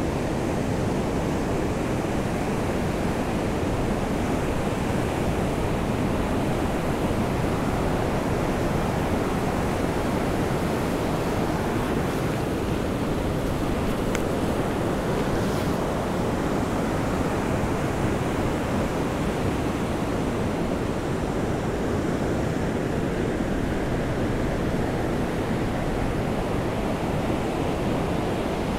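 Steady rushing noise of ocean surf on a beach in the rain, mixed with wind.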